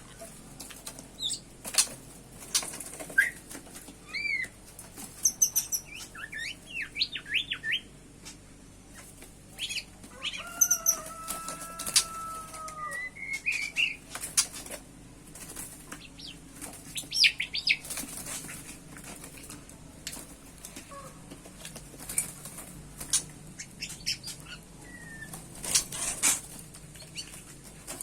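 Small birds flapping their wings in short bursts, with scattered high chirps and warbling calls and one longer drawn-out call about halfway through.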